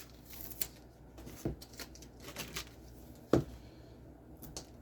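Comic books and their packaging being handled as a bundle is freed: light rustling and clicking, with two sharper knocks, one about a second and a half in and one a little over three seconds in.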